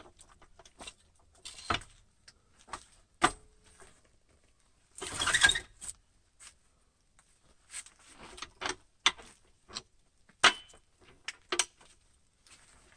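Scattered metallic clinks and knocks of tools and parts being handled at a car's front suspension, with a few sharper knocks and one brief louder noisy scrape about five seconds in.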